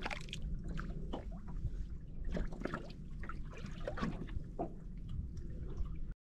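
Small waves lapping and sloshing against the side of a small boat at sea, with scattered small splashes over a low steady rumble.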